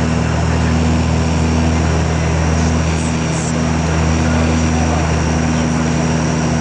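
Cabin drone of an ATR 72's twin turboprop engines and propellers on the approach to landing: a steady hum made of several fixed low tones over a wash of noise.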